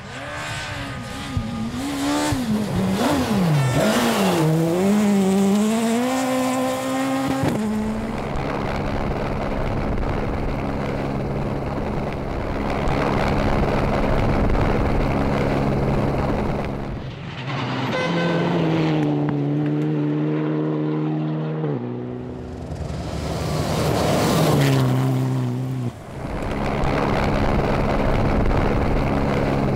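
Rally cars driven flat out, engines revving high and rising and falling in pitch through gear changes, with abrupt cuts from one car to another several times.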